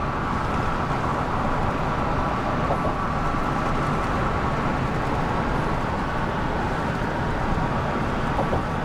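Steady road noise of a car driving at speed: an even rumble of tyres and engine with a faint steady hum.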